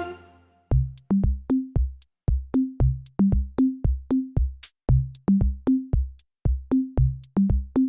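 Background music: a sparse drum-machine beat with bass notes, about two to three hits a second, starting just under a second in after the fuller music stops.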